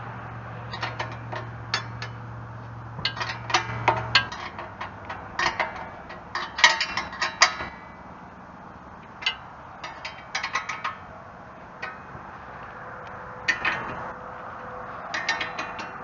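Ratchet wrench clicking in short runs, tightening loose nuts on a backhoe's joystick control linkage. A steady low hum stops about four seconds in.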